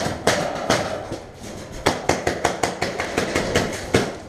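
Paintball markers firing: a few single pops, then a rapid string of about five shots a second.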